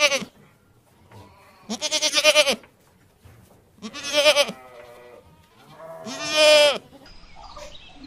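Goats bleating: loud, wavering calls about two seconds apart, four in all, the last the longest.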